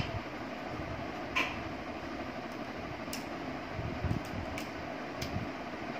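Steady rushing noise of heavy rain, with a few short clicks and crunches from monkeys eating snack chips.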